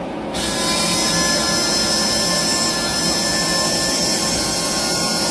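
Small electric motor of a hydraulic RC construction model running steadily: a whirring hiss with a thin, constant high whine, starting abruptly just after the start.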